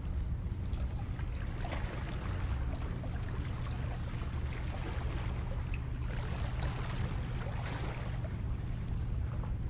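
Steady low wind rumble on the microphone over the wash of the sea, with the hiss of water swelling a few times.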